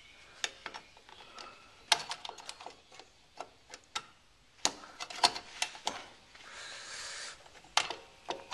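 Irregular small metal clicks and clinks of drum brake hardware being handled and fitted by hand, with about a second of soft scraping about six and a half seconds in.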